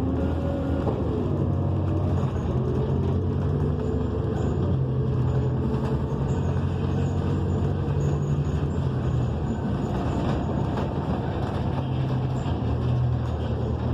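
Inside a New Flyer XN40 transit bus under way: its Cummins Westport ISL G natural-gas engine and Allison B400R transmission running steadily, with road noise and a low, even drone.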